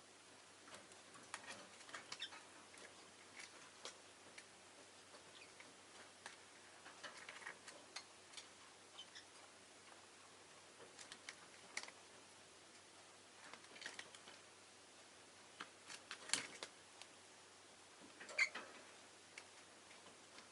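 Faint, irregular clicks and taps from peach-faced lovebirds moving about and nibbling in their cage, with a louder short sound about two seconds before the end.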